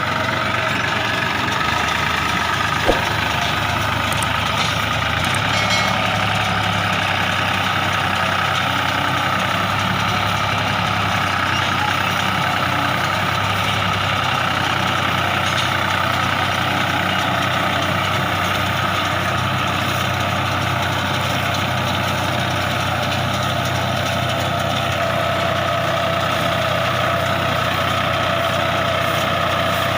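New Holland 4710 tractor's three-cylinder diesel engine running at a steady speed. A single sharp click about three seconds in.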